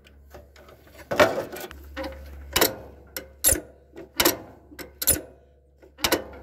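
Sharp metal clicks and clanks of wrenches on the nuts and hardware of a Case Ingersoll garden tractor's PTO clutch, about ten irregular hits, the loudest about a second in.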